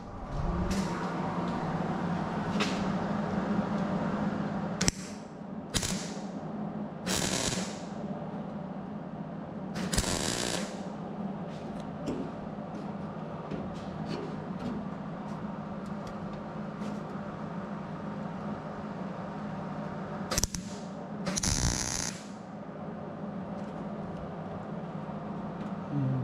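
Hobart MIG welder humming steadily once switched on, with about half a dozen short bursts of arc crackle, each under a second and the longest near 10 s and 21 s: tack welds on thin 18-gauge sheet steel at low voltage.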